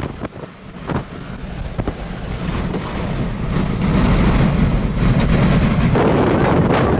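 Strong wind buffeting the microphone as a low, noisy rumble. It drops away sharply at the start, then builds back up over the next few seconds and stays loud.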